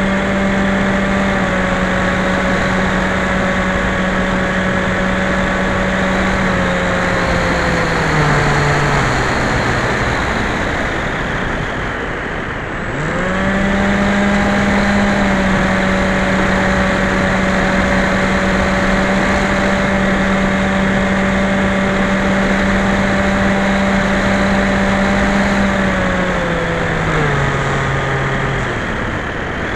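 Electric motor and propeller of a Skyhunter RC model plane, heard from on board over a rushing noise. The motor holds a steady drone, is throttled back in steps to near off about a third of the way in, and is throttled up sharply again just before the middle. It holds steady, then steps down again near the end.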